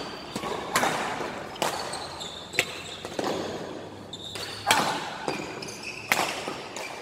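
Badminton rally: sharp racket-on-shuttlecock smacks, about six hits roughly a second apart, each echoing in a large hall, with short squeaks of court shoes on the floor between them.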